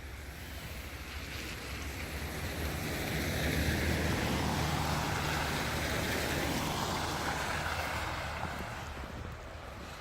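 A vehicle driving past on a snowy, slushy street: tyre hiss and a low engine sound swell to a peak about halfway through and fade away.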